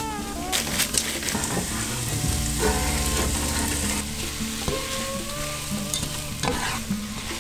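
Sliced vegetables sizzling as they sauté in a nonstick pot, stirred with a utensil that scrapes and clicks against the pan.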